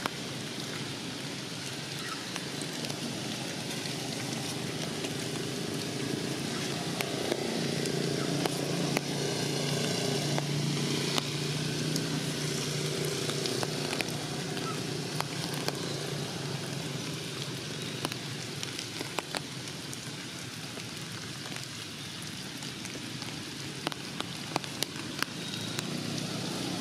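Steady rain falling on forest leaves, with scattered sharp drips. A low steady hum joins it from about seven seconds in and fades out about halfway through.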